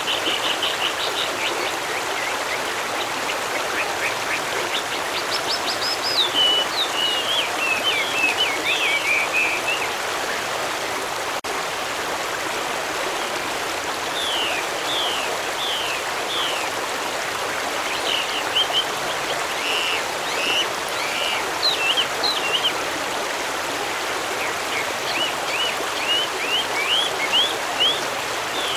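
A steady rushing stream, with songbirds singing over it in several bouts of quick chirps and short, sharp notes, separated by pauses of a few seconds.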